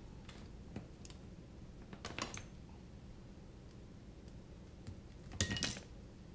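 Small metal hand tools clicking and clinking on the workbench while a cable is made up: a few light clicks, a cluster about two seconds in, and a louder clinking cluster with a brief metallic ring near the end.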